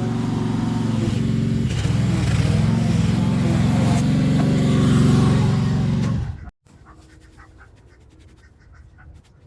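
Small petrol engine of mowing equipment running steadily under load, with a slight waver in pitch; it cuts off abruptly about six and a half seconds in, leaving only faint clicking and rustling.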